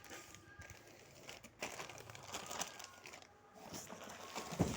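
Plastic diaper packaging crinkling and rustling as it is handled, with a thump near the end.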